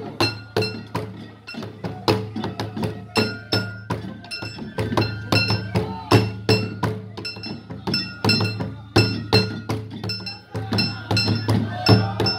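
Japanese festival band: hand-held drums beaten with sticks and small metal hand gongs clanging in a quick, busy rhythm, with high ringing tones held over the beat.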